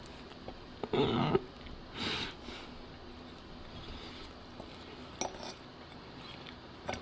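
Metal fork clinking and scraping against a dinner plate as food is picked up. It is loudest about a second in, then softer about two seconds in, with a few light clicks later.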